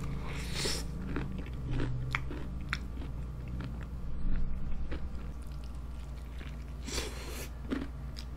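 A person biting into crispy fried chicken coated in melted cheese sauce and chewing it, with short crunches and mouth clicks. The loudest crunches come near the start and again about seven seconds in, over a steady low hum.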